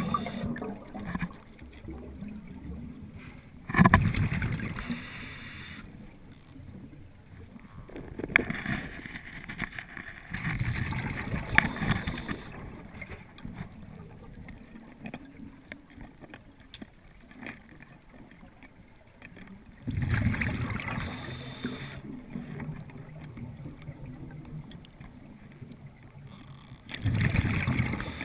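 Water sloshing and gurgling in irregular bursts, with quieter stretches between them.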